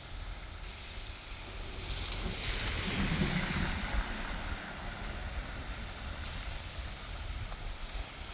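Floodwater rushing and splashing, swelling louder a couple of seconds in, over a low wind rumble on the microphone.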